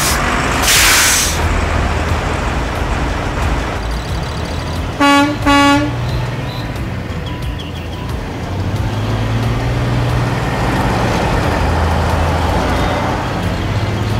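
Semi-truck horn giving two short toots about five seconds in, over the steady low rumble of the truck's diesel engine. A brief hiss of air comes about a second in.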